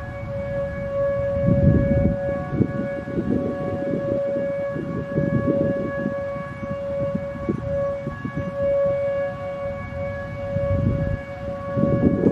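Federal Signal Modulator 4016 electronic outdoor warning siren sounding a steady dual-tone Alert signal for a weekly test, held at one pitch without rising or falling. An irregular low rumble runs underneath it.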